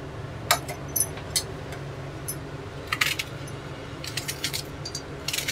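Red onion being peeled by hand: scattered light crackles and clicks from its dry papery skin, with a small metallic clink about a second in.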